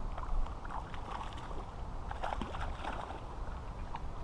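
Pond water splashing and sloshing: a few short splashes over a steady low rumble.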